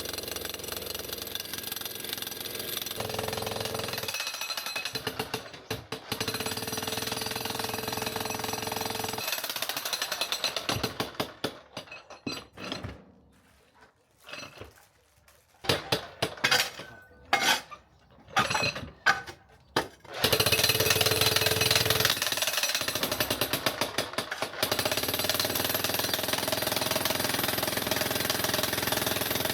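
Electric concrete breaker hammering through a concrete slab with a steady, rapid pounding. About twelve seconds in it stops for a few seconds, runs in several short bursts, then settles back into steady hammering.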